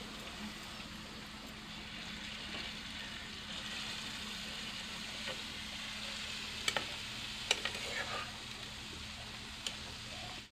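Small fish sizzling as they fry in hot oil in a steel kadai, stirred with a metal spatula. A few sharp clicks of the spatula on the pan come in the second half.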